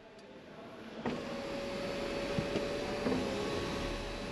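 Kia ProCeed's 1.5 T-GDI turbocharged petrol engine idling, heard at the rear through its standard civilian muffler: a quiet, steady hum with a faint thin whine. It comes in suddenly about a second in.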